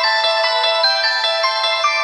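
Music: a fast run of high notes, several a second, over a steady held tone.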